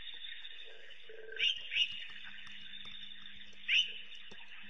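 African wild dogs giving short, high, rising squeaky chirps, two in quick succession and then a third a couple of seconds later, over a steady high hiss.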